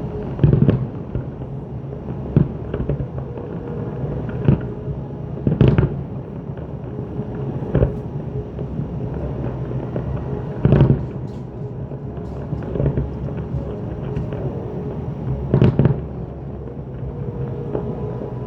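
Aerial fireworks shells bursting: about eight sharp booms spaced irregularly a couple of seconds apart, over a steady low background rumble.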